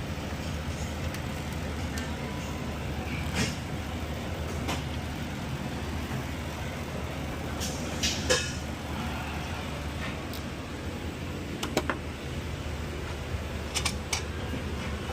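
Steady low shop hum with scattered light metallic clicks and knocks of tools and parts being handled at the wheel hub, a few at a time: one a few seconds in, a small cluster about halfway, and a pair near the end.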